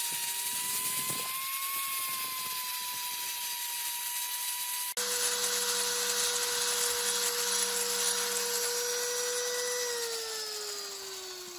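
Angle grinder with a wire cup brush scrubbing rust and old paint off a sheet-metal electric motor housing: a steady motor whine over scratching bristles. The whine drops abruptly to a lower pitch about five seconds in. Near the end the pitch falls as the grinder winds down.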